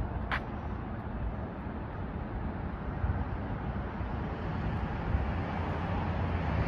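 Steady outdoor city background noise, with wind rumbling on the microphone and growing a little louder towards the end. One short, high chirp just after the start.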